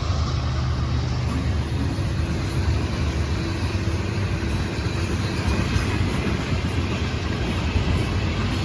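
A long freight train rolling past close by, a steady rumble of steel wheels on the rails.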